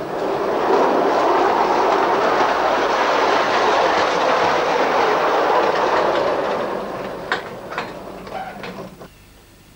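A 1:16 scale electric model tram running along its track: a steady rolling rumble that fades away about seven seconds in, with a few sharp clicks as it fades.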